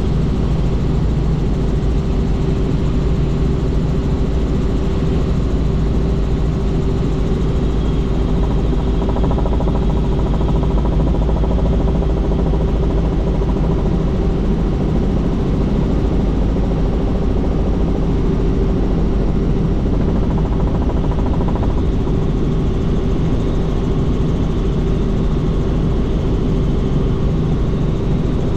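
Helicopter in flight, its engine and rotors making a constant, even drone with a steady hum running through it.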